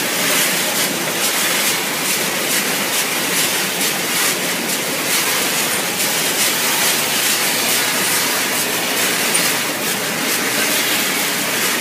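Dog food kibble tumbling in a rotating stainless steel drum and running along a belt conveyor on a running production line: a steady rattling hiss with many small clicks.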